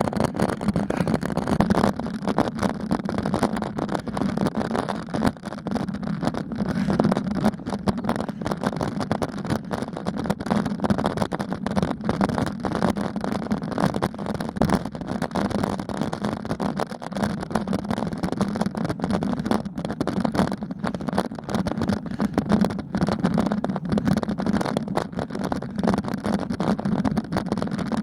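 Steady rumble and crackling from wind and road vibration on a bicycle-mounted camera's microphone during a ride, with no break or change.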